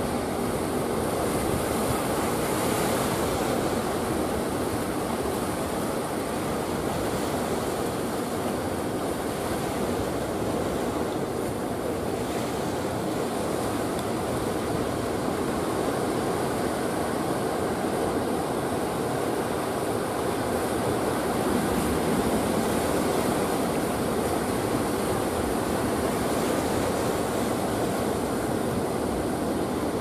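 Big ocean waves breaking on a beach: a steady, unbroken rush of surf.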